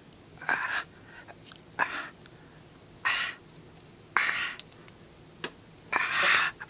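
A person making hissing, breathy mouth noises in about five short bursts, roughly one a second, with the longest and loudest near the end.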